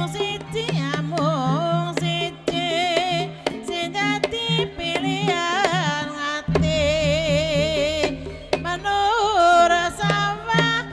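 Javanese ebeg gamelan music: a sung melody with heavy wavering vibrato over hand-drum (kendang) strokes and a steady low gamelan drone.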